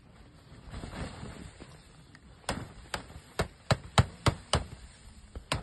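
A pole beating a snow-covered dome tent to knock the snow off: a run of sharp smacks, about three a second, starting about halfway in, with one more near the end.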